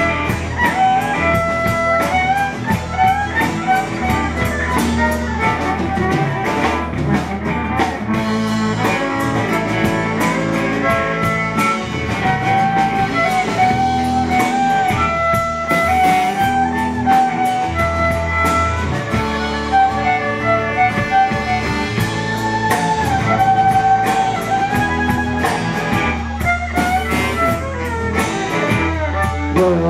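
Live band playing an instrumental passage without vocals: electric guitars and drum kit under a steady bass line, with fiddle and saxophone on held lead notes.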